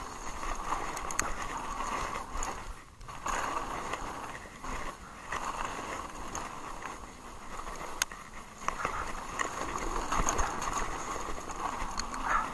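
Haibike SDURO electric mountain bike rolling fast downhill over a dirt and gravel trail: steady tyre noise and rattle, with sharp clicks and knocks from the bike over bumps, clearest about a second in, about eight seconds in and near the end.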